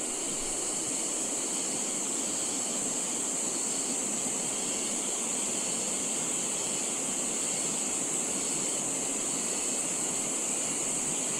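Steady rushing of a flowing river, an even noise without breaks, with a constant high hiss above it.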